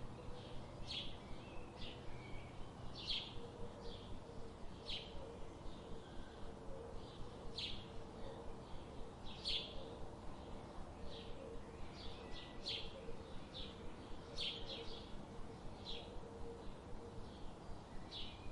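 Birds chirping: short, high chirps in quick succession over a faint steady background hiss.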